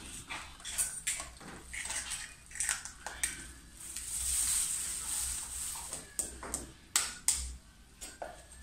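Eggs being cracked against a plastic mixing bowl and dropped into batter: a run of short light taps and cracks, with about three seconds of plastic-bag crinkling in the middle as the shells are handled.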